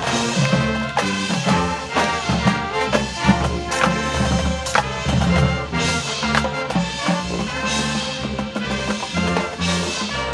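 Marching band playing: trumpets and trombones holding and moving through chords over a steady drum beat.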